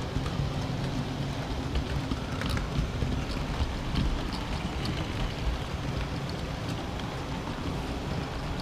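Model railway train running on its track, heard close up from a wagon behind the locomotive: a steady motor hum under a rattling rush of wheels on rail, with scattered clicks as the wheels cross rail joints and points.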